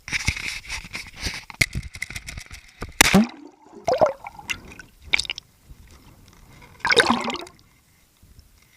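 Water splashing and dripping in irregular bursts, with louder splashes about three seconds in and again about seven seconds in.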